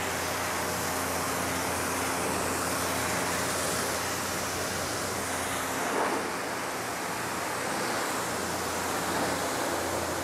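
Pressure-washer wand spraying a steady jet of water onto a car's windshield and hood, a continuous hiss with a faint low hum underneath. This is the rinse that spreads and sets a freshly applied spray-on coating maintenance sealant.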